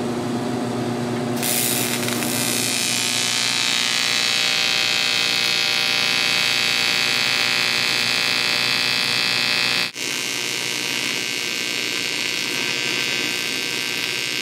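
AC TIG welding arc on aluminum, struck about a second and a half in and then buzzing steadily with a hiss. It breaks off for an instant near ten seconds in and goes on buzzing. Before the strike there is a low hum.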